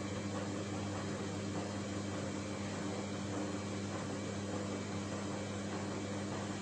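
Samsung WF1600WCV front-loading washing machine running a wash cycle: a steady, even hum with a low mains-like drone under a noise hiss.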